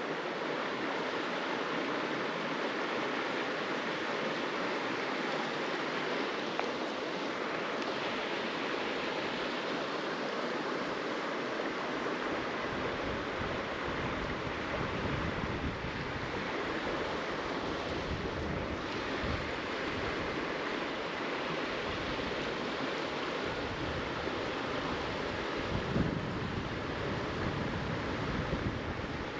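Steady rush of a flowing creek. From about halfway through, wind buffets the microphone in low gusts.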